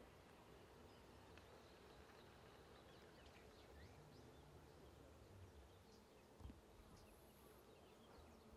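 Near silence: quiet outdoor ambience with faint, scattered bird chirps and a single soft low thump about six and a half seconds in.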